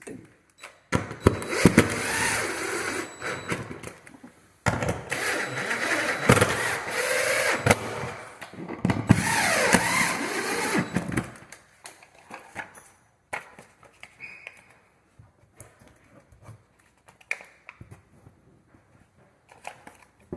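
Power drill running in three long bursts, the motor winding down in pitch as the third one ends, followed by faint handling clicks.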